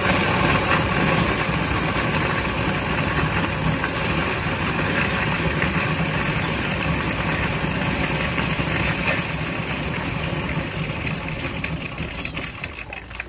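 Bank coin-deposit machine running, with a steady stream of coins clattering through its counting mechanism as they are tipped in. The clatter thins and dies down near the end.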